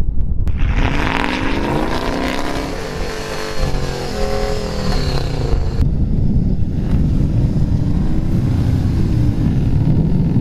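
Pickup truck engine revving up and easing off twice while a truck stuck in deep snow tries to get free.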